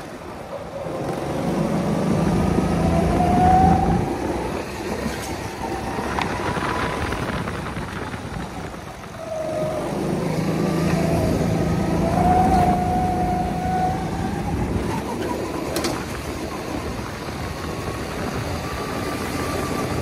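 Petrol rental go-kart engine heard from the driver's seat, rising in pitch as it accelerates and dropping back as it slows for corners, twice.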